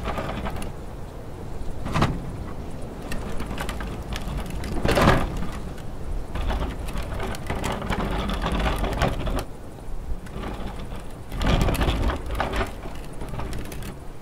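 Gusty wind buffeting the microphone, a rough rumbling noise that surges in several loud gusts and eases between them.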